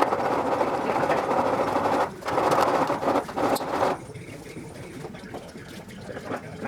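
A small power tool runs in two bursts of about two seconds each, with a short stop between them. After that only quieter background sound remains.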